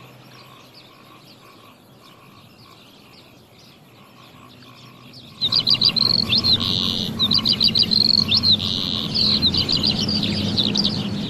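Birds chirping and twittering in quick, repeated high chirps and trills, faint at first and much louder from about five seconds in, over a low steady background noise.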